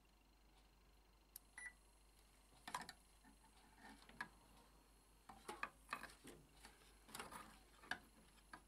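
Faint, irregular clicks and rustles of small wires and plastic bullet connectors being handled and plugged together, most of them in the second half.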